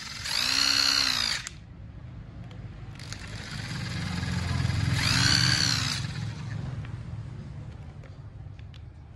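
Small 100V corded electric screwdriver's motor whirring under trigger control. Twice, about a second in and again around five seconds in, it speeds up to a high whine that rises and falls back as the variable-speed trigger is squeezed and eased off.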